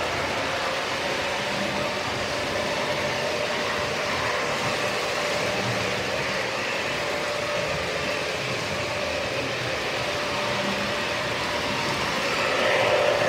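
O-scale model trains running past on three-rail track: a steady rumble of wheels on the rails with a steady whine, briefly louder near the end.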